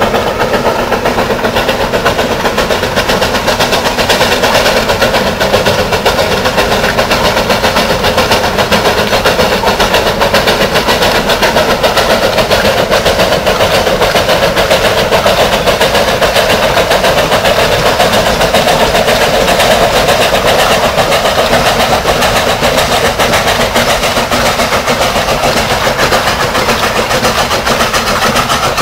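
Narrow-gauge steam locomotive hauling a coal train, working steadily under load. Its exhaust beats come in a rapid, even chuffing that runs together into a continuous sound.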